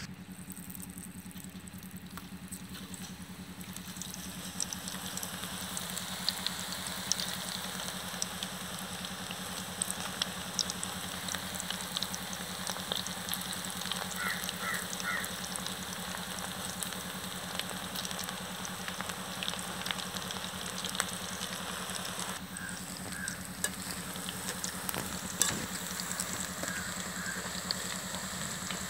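Battered banana flower pakoda deep-frying in a wide pan of hot oil: a steady sizzle with frequent crackles, growing louder about four seconds in.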